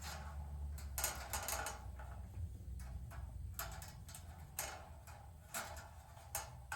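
Light, irregular metallic clicks and rattles, about nine in all, of a replacement dryer heating element coil being worked into its sheet-metal heater housing, over a steady low hum.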